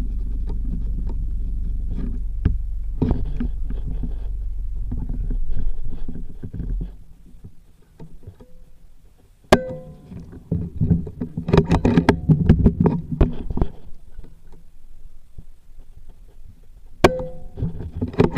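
Two sharp PCP air rifle shots, each a crack with a short ringing tone, the first about nine and a half seconds in and the second about seven seconds later, with rustling and handling knocks between them. Before the shots, a steady low rumble runs for several seconds and then fades out.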